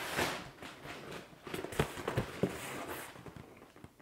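Rustling and handling noise from a cardboard sneaker box and its packing, with several light knocks and taps.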